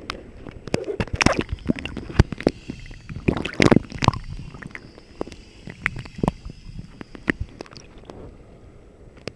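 Water sloshing and splashing around a kayak, with a run of irregular sharp knocks and clatters on the boat while a hooked trevally is played alongside. The knocks come thickest in the first four seconds and die away near the end.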